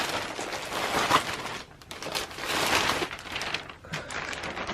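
Packaging crinkling and rustling as it is handled and opened to take out folded T-shirts, with a short lull partway through.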